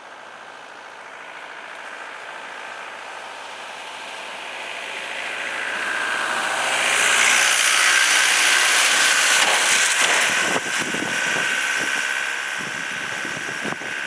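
Boeing 777 freighter's GE90 turbofan engines on final approach, growing steadily louder as the jet nears and at their loudest about seven to nine seconds in, then easing slightly. A steady high fan whine runs over the rushing jet noise.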